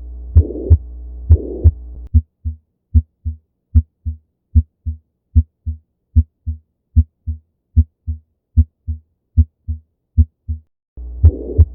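Auscultation recording of heartbeats. At first a harsh holosystolic murmur of a ventricular septal defect fills the gap between each first and second heart sound, over a low hum. About two seconds in it switches to clean, normal lub-dub heart sounds, roughly 75 beats a minute with silence between. The murmur returns near the end.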